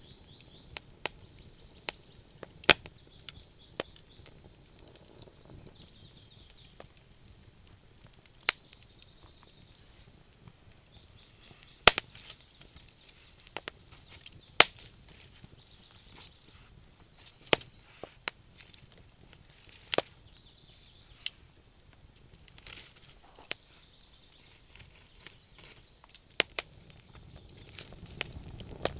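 Wood fire crackling: sharp snaps and pops at irregular intervals, about a dozen loud ones among fainter ticks, over a low steady hiss.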